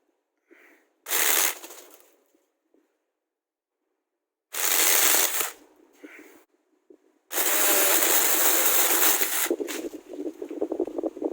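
Small electric mini chainsaw run in three bursts: two of about a second each, then a longer run of about two and a half seconds. The chain is fitted upside down and a little loose. Irregular crackling follows near the end.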